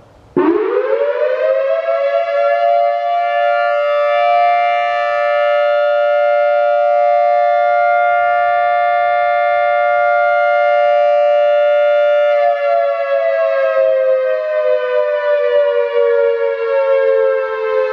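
Whelen electronic outdoor warning siren set to imitate a Federal Signal 3T22 sounding Alert. It starts abruptly about half a second in, rises quickly to a loud steady chord of two close pitches, holds it, then near the end begins a slow falling wind-down like a mechanical siren's rotor coasting to a stop.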